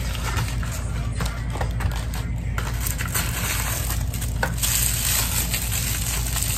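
Rustling and small clicks of a small jewelry package being handled and opened by hand, over a steady low hum.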